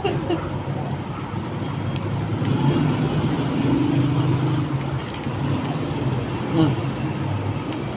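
Steady low background rumble, with faint voices around the middle.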